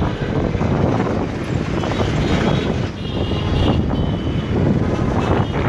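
Wind buffeting the microphone over the running of a motorcycle and the surrounding road traffic during a ride.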